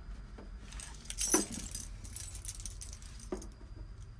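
Bunch of keys on the ignition key ring jingling, loudest in a burst about a second in, then lighter jingles and a click or two.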